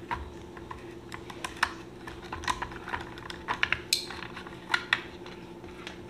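Irregular small clicks and taps of a screwdriver loosening and working the screw terminals of a plastic analog timer, with wire being handled and a brief scrape about four seconds in, over a faint steady hum.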